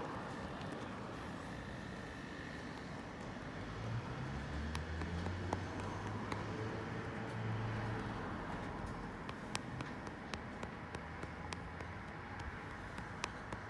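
Outdoor background noise with a low motor hum that swells about four seconds in and fades after about eight, and scattered light clicks in the second half.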